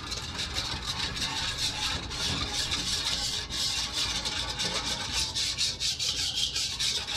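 Wire whisk beating a thin mixture in a stainless steel mixing bowl, the wires scraping and clattering against the metal in fast, even strokes, several a second. A steady noise that is plainly loud.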